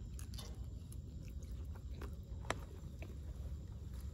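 A person chewing a mouthful of crispy sweet-and-sour fried pork (guobaorou), over a steady low rumble. There are a few small clicks, and a sharper one about two and a half seconds in.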